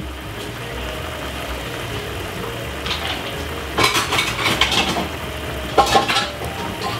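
Chicken and vegetable stir-fry sizzling steadily in a frying pan as sauce goes in. A few clusters of clinks and scrapes from a utensil against the pan come about four and six seconds in.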